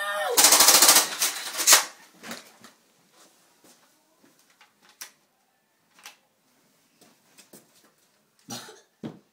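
A loud burst of rapid, rattling clicks about half a second in, lasting about a second, followed by a few scattered single knocks and bumps.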